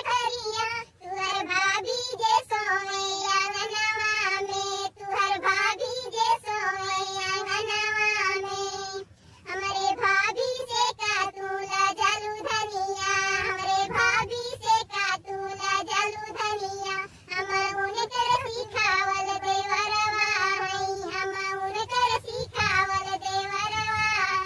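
High-pitched, pitched-up cartoon voice singing a Bhojpuri folk song in long held phrases, with a short break about nine seconds in.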